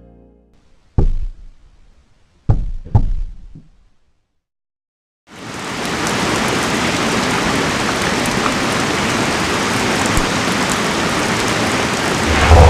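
Heavy thumps: one about a second in, then a quick group of two or three about a second and a half later. After a moment of dead silence, a loud, steady rain-like hiss starts about five seconds in and keeps on.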